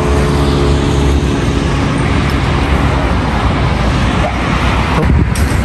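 Steady road traffic rumble. A passing vehicle's engine hum fades away over the first couple of seconds.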